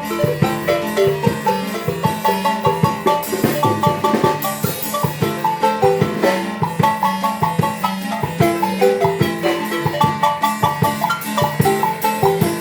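Marimba ensemble playing a lively tune: rapid runs of mallet-struck wooden bar notes over a steady beat with drum accompaniment.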